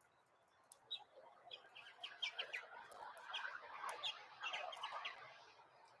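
Small songbirds chirping in a quick, overlapping jumble. The chirping starts about a second in and fades out near the end.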